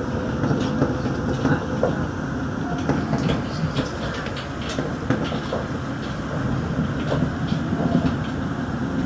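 Interior running noise of a Daegu Metro Line 3 rubber-tyred straddle-beam monorail car moving along its elevated guideway: a steady rumble with scattered light clicks and rattles. A faint steady tone fades out about two seconds in.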